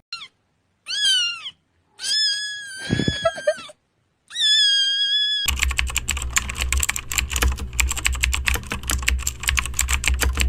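A cat meowing four times, each call rising and falling in pitch, the third and last ones longer. About halfway through, a fast, continuous clatter of keyboard typing takes over above a low hum.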